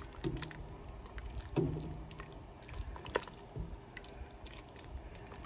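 Faint liquid sloshing of chicken soup broth in a pot as it is stirred with a plastic slotted spoon, with a few light clicks.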